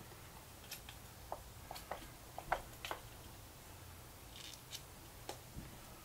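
Faint footsteps crunching on a gritty dirt floor: a scattering of irregular light clicks and scuffs, the sharpest about two and a half seconds in.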